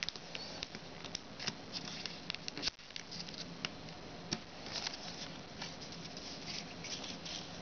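Foil origami paper being folded and creased by hand, giving small, irregular crinkles and clicks.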